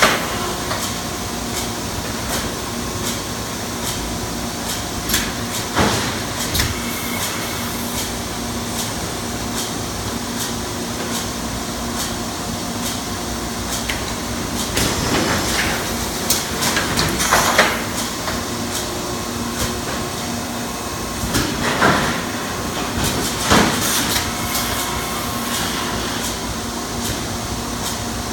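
Industrial thermoforming machine running: a steady hum with repeated sharp mechanical clanks, and louder clattering spells around the middle and near the end.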